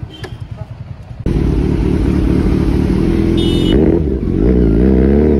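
Kawasaki Z900's inline-four engine through an SC Project full exhaust. It pulses at idle, then about a second in turns suddenly much louder and runs under way, its pitch rising and falling with the throttle.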